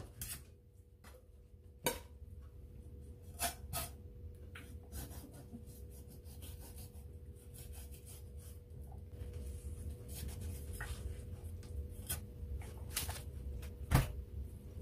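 Knife filleting a large fish on a wooden cutting board: soft scraping and rubbing as the blade works through the flesh, with a few sharp knocks scattered through.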